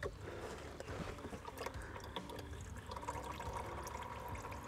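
Engine oil pouring in a steady stream from the open oil filter housing of a 3.0L Duramax inline-six diesel, splashing into a drain pan. About three seconds in, a faint steady tone joins the splashing.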